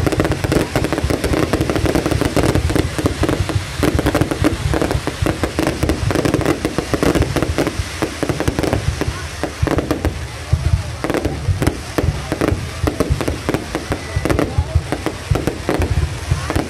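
Aerial fireworks display: a rapid, continuous barrage of shell bursts and crackling, many bangs overlapping with no pause.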